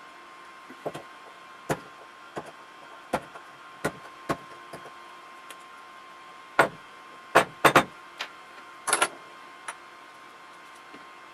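Scattered sharp clicks and taps of small parts and hand tools being handled, about a dozen, with the loudest quick cluster a little past halfway, over a faint steady hiss and a thin high hum.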